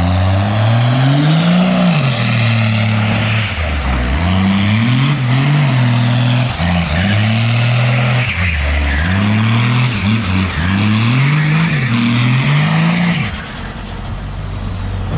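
First-generation Dodge Cummins 5.9 L inline-six turbo diesel revving up and falling back over and over as the truck spins donuts, with tyre noise over it. The revving drops away near the end, leaving the engine running lower.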